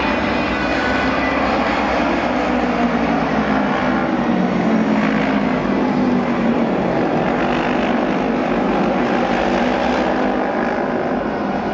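Auto race motorcycles' 600cc twin-cylinder engines running at speed on the oval, a continuous loud drone of several bikes whose pitch wavers, swelling slightly about four to five seconds in.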